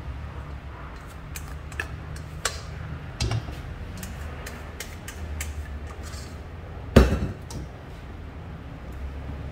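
Plastic spatula folding meringue into egg yolk in a stainless steel mixing bowl, with scattered light clicks and knocks against the bowl and one loud knock about seven seconds in, over a low steady hum.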